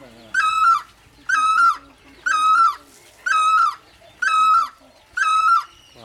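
Great barbet calling: a loud, mellow note repeated evenly about once a second, six times, each note about half a second long.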